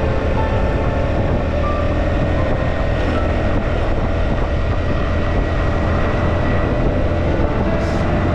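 Steady travelling noise of a vehicle on a highway: engine, tyre and wind noise with a constant low rumble.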